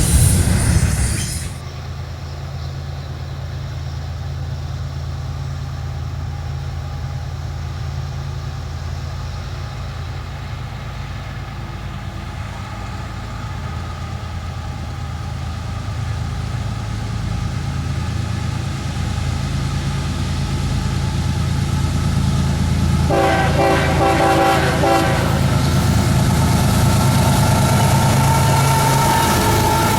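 Diesel freight locomotives approaching, their engines running as a steady low drone that grows louder. About three quarters of the way in the locomotive horn sounds for a couple of seconds, followed by steadier high tones as the train draws near.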